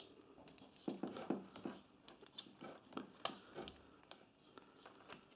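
Light, irregular clicks and taps from hands handling a multimeter's test probes and the welder's mains plug, scattered over a few seconds.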